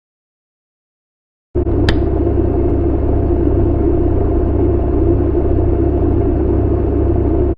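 Portable fan running steadily, with a strong low rumble and a faint steady hum. It starts abruptly about a second and a half in, with a sharp click just after, and cuts off near the end.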